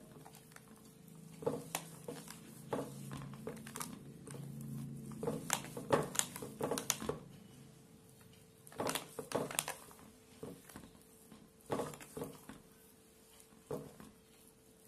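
Boiled potatoes rubbed down a flat, oiled metal hand grater over a steel bowl: irregular short scraping strokes, bunched closer together around the middle, with a faint steady hum beneath.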